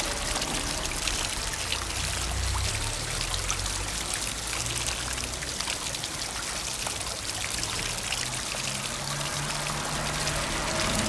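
Water from a tiered fountain pouring and splashing steadily, with faint low sustained tones underneath.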